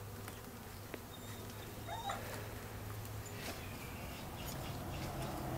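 A package of honeybees buzzing with a steady low hum, with a few faint ticks and a short rising chirp about two seconds in.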